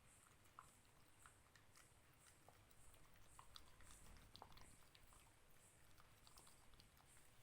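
Dalmatian puppy chewing dog food, faint irregular crunches and clicks of its bites.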